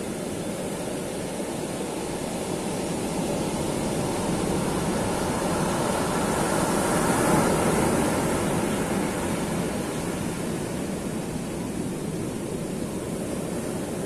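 Ocean waves breaking and washing up a sandy beach: a steady rush of surf that swells to its loudest about halfway through as a wave breaks close in, then eases back.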